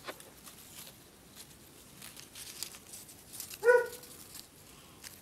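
Quiet handling of paper strips and tape, with faint crinkles and small clicks as the paper links are fitted together. About three and a half seconds in comes one brief, high-pitched vocal sound, a short yelp, the loudest thing heard.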